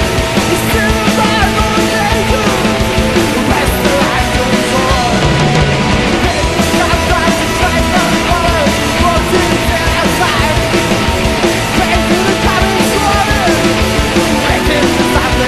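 Live progressive rock band playing loud and dense without a break: electric guitar, bass guitar and drums in a heavy, punk-edged passage.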